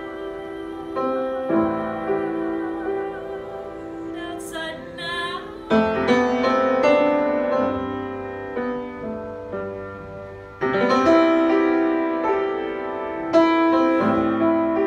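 Upright piano playing slow, held improvised chords, with a woman singing a short phrase with vibrato a few seconds in.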